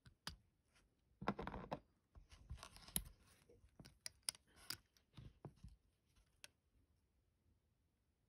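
Close handling noises: rustling and scraping of fingers on a glasses frame and its nylon string, then several sharp metallic clicks as a steel nail clipper is picked up and handled.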